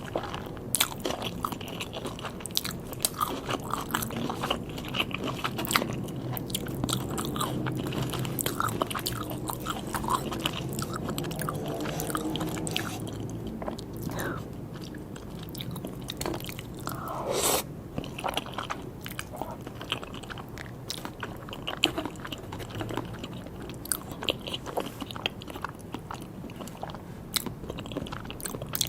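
Close-miked eating sounds of sushi and sashimi being bitten and chewed, with many short sharp clicks.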